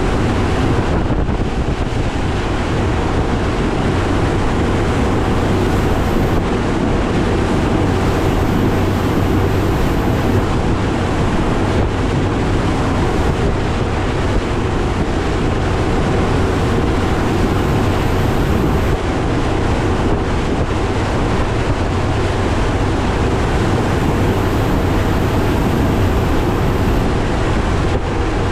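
A Nitro Z19 bass boat's Mercury Pro XS 200 outboard runs steadily under way, with heavy wind buffeting the microphone and water rushing past the hull in rough chop.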